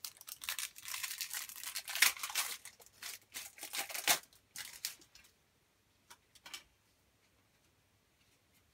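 A Match Attax trading-card foil packet being torn open and crinkled, dense crackling for about five seconds, then a couple of brief rustles as the cards come out.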